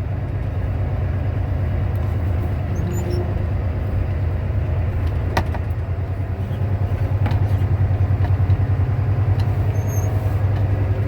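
Semi truck's diesel engine running while the truck moves slowly, a steady pulsing low rumble heard from inside the cab. It gets louder about two-thirds of the way in as the engine pulls harder. There is a single sharp click about halfway.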